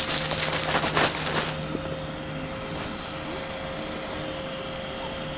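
Small electric air pump running with a steady hum, with crinkly rustling of tent material in the first second and a half.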